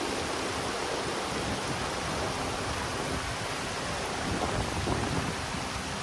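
Wind blowing across the microphone: a steady rushing hiss over a gusty low rumble that swells a little about four to five seconds in.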